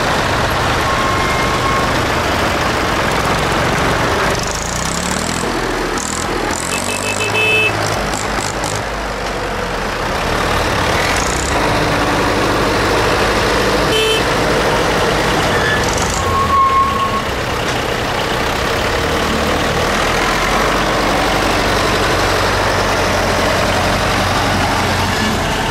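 Tractor engines running as tractors drive past one after another, a steady low engine drone whose pitch shifts as different machines pass. A few short higher tones and clicks sound over it.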